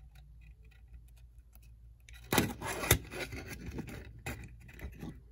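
Small parts of a model train locomotive being handled: faint clicks, then from about two seconds in louder rubbing and scraping with sharp clicks, as the light and its wires are bent and fitted into the chassis.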